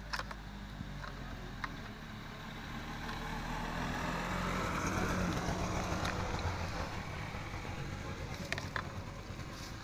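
A motor vehicle going by, growing louder to a peak about halfway through and then fading, with a few light clicks of the chainsaw being handled.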